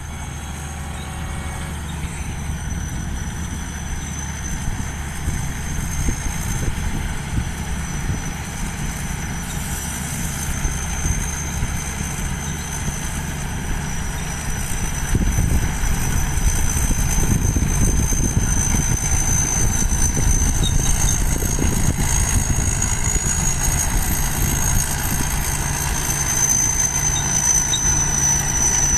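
Strong wind buffeting the microphone over a steady engine running, with a thin high whine throughout. The wind gets louder about halfway through.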